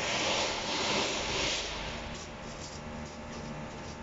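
A steady hiss that dies away about two seconds in, followed by faint clicks of small parts being handled on an automatic transaxle's valve body.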